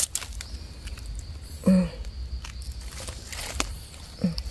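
Dry leaf litter rustling with scattered small clicks and scrapes as gloved hands work a knife on freshly dug wild mushrooms and reach into the leaves. A brief vocal sound comes just under two seconds in, and another near the end.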